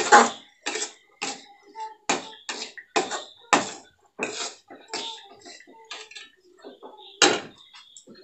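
Flat metal spatula scraping and turning chopped mango ginger around a metal kadai, in short strokes about twice a second that thin out near the end.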